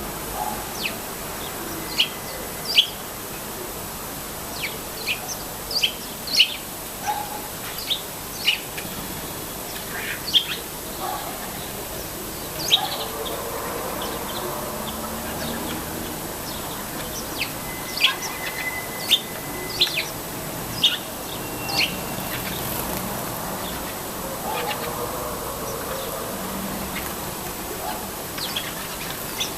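Sparrows chirping: short, sharp chirps that come in scattered clusters over a steady background hiss.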